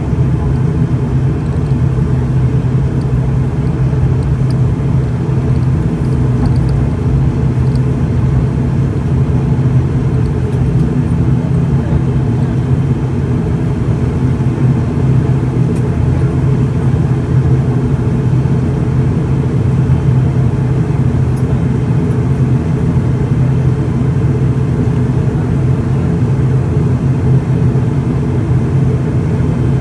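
An ATR-72's turboprop engines and propellers running at taxi power after landing, heard from inside the cabin beside the wing as a steady low drone.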